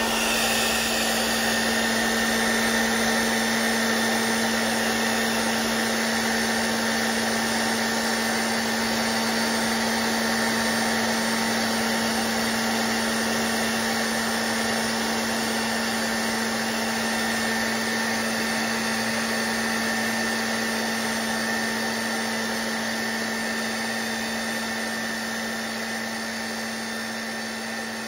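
Hand-held hair dryer running on its cool setting: a steady motor hum under the rush of blown air, growing a little quieter near the end.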